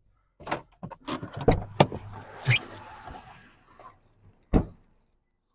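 Pickup truck door being opened and shut as the driver gets out: a run of clicks and knocks, then one loud thump about four and a half seconds in.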